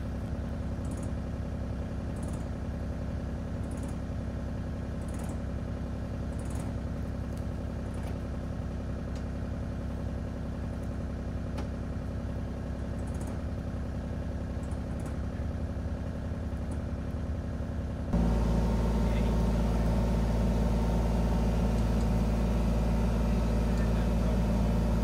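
An engine idling steadily, with a low even hum. About 18 seconds in it gets abruptly louder and fuller, then holds steady again.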